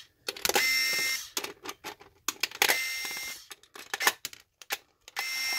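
Sumake electric torque screwdriver on its high speed setting, whirring in three short runs of under a second each as it backs screws out, one screw per run. Sharp clicks and clatter of handling and loosened screws fall between the runs.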